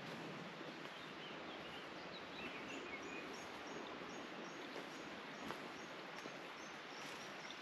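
Steady rush of flowing water from an irrigation canal, with small birds calling over it. From about three seconds in, one bird repeats a short high chirp two or three times a second.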